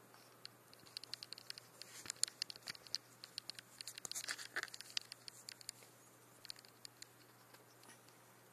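Green iguana eating leafy salad greens: quick, faint crisp clicks as it bites and tears the leaves. The clicks are thickest in the middle, with a short rustle of leaves about halfway through, then thin out near the end.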